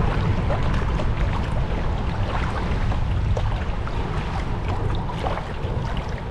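Epic Mid Twist kayak paddle blades dipping and splashing in choppy water, with water slapping the kayak's hull, over a steady low rumble of wind on the microphone.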